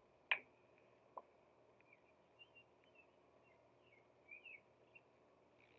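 Near silence with faint bird chirps, broken by one sharp click about a third of a second in and a fainter tap about a second in, such as the plastic cap of a vegetable oil bottle being handled and set on a glass table.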